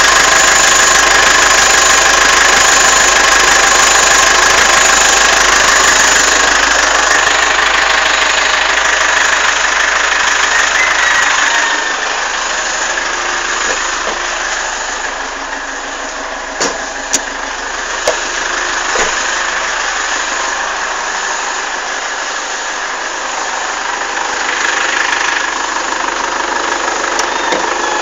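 A vehicle engine running steadily, with a loud continuous noise and a few steady tones: the unwanted sound the owner is recording. It gets somewhat quieter about twelve seconds in, and a few sharp clicks come a little later.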